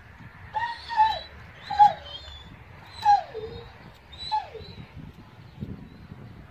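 Kangal dog whimpering in a series of about five short whines, each falling in pitch, as its neck fur is trimmed with scissors.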